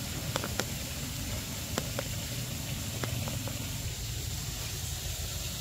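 Steady outdoor background noise: a low rumble and hiss with a thin, steady high tone over it, and a few faint sharp clicks scattered through the first three seconds.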